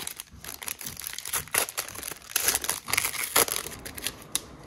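Foil wrapper of an Upper Deck Synergy hockey card pack being torn open and crinkled by hand: irregular crackling, loudest between about two and a half and three and a half seconds in, then dying away.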